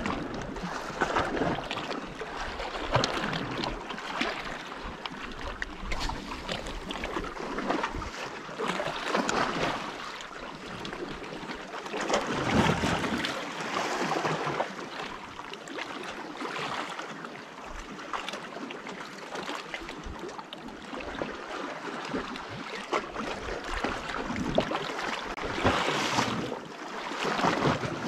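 Sea water washing and splashing against the rocks below, swelling and falling back every few seconds.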